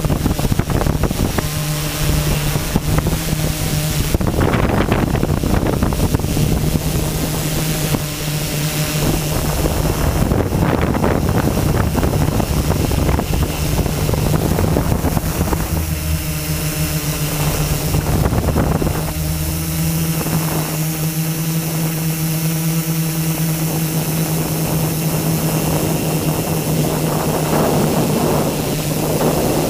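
A multirotor drone's motors and propellers whining steadily, the pitch shifting now and then as it manoeuvres, with wind noise on its on-board microphone.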